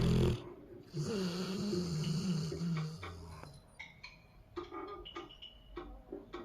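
Snoring: a loud snore ends just after the start, then a long snore with a wavering pitch runs for about two seconds from a second in, followed by only faint short clicks and soft breaths.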